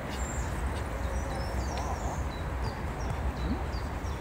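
Wind rumbling on the microphone, with many short, high bird chirps repeating in the background.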